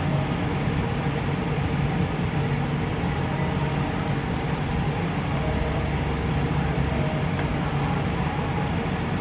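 Steady droning hum and hiss, unchanging throughout, with no distinct events.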